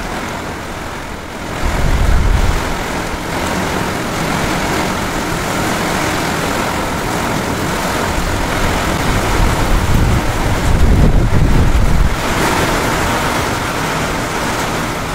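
Heavy rain pouring down on a sheet-metal terrace roof and wet concrete floor, a steady loud hiss. Two louder low rushes come through it, about two seconds in and again from about ten to twelve seconds.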